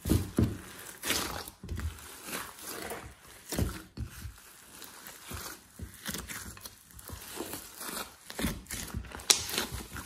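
Hands kneading, stretching and squeezing a large mass of mixed rainbow slime in a glass dish: irregular sticky squelches and clicks as it is pulled apart and pressed back together.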